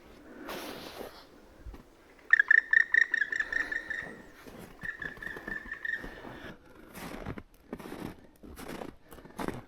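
A bird calling: a fast run of clear, ringing notes, then one longer held note at the same pitch. Several short crunching noises follow in the second half.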